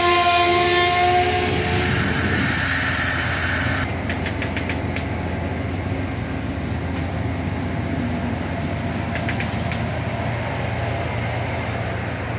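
Amtrak Northeast Regional passenger train rolling slowly past the platform. A steady horn tone stops about a second in, a hiss follows for about two seconds, then the low rumble of the cars goes on with a few short runs of wheel clicks.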